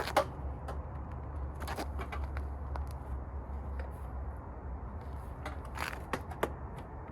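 Scattered clicks and knocks of hands and tools working loose motorcycle rear-fender parts and wiring, the sharpest just after the start and a small cluster about six seconds in, over a steady low hum.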